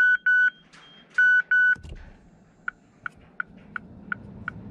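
2010 Mazda 6 in-car electronic warning chime: two loud double beeps at one pitch, then a softer, even chime ticking about three times a second, as the new start/stop button is tried out.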